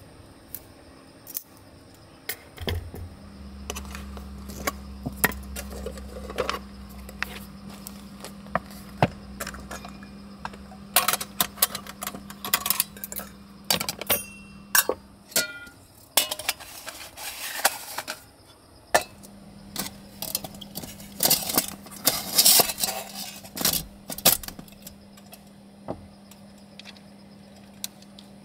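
Aluminium storm cooker cookware clinking and clattering as it is unpacked and set out on a wooden tabletop: nested pots, a lid, a wire mesh grill and the burner put down in a long string of sharp metal clinks, with two busy flurries partway through.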